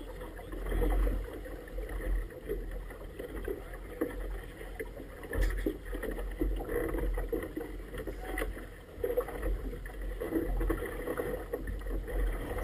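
Choppy water sloshing and splashing against a small inflatable boat's tube and a buoy held close alongside on a line, in short irregular slaps over a steady low rumble.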